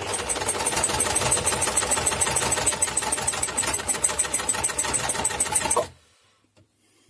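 Janome Free Arm Lightweight sewing machine running fast, stitching through fairly dense fabric with a loud, rapid rattle; it stops abruptly near the end. The rattle comes from a dry mechanism whose old grease has hardened: the machine needs oiling.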